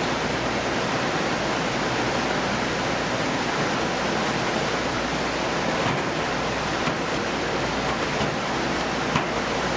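Steady rushing noise of running water, with a low hum underneath and a couple of faint clicks.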